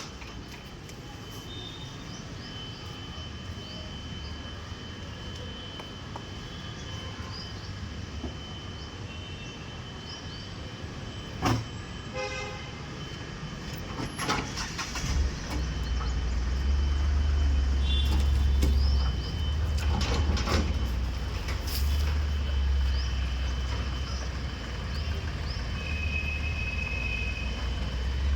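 A vehicle engine runs with a deep, steady rumble that sets in about halfway through. A few knocks and clatters come before and during it, and a short high tone sounds near the end.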